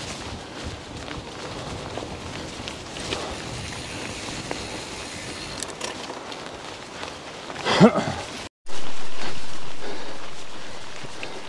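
Storm wind buffeting the microphone during a mountain bike ride, with a steady crackling rattle of the bike and tyres on the trail. About eight seconds in comes a brief squeal that slides in pitch, then the sound drops out for a moment.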